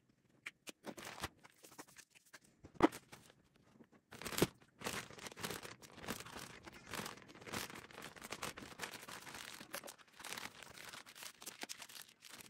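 Rustling and crinkling handling noises, with two sharp knocks about 3 and 4.5 seconds in, then steady dense rustling.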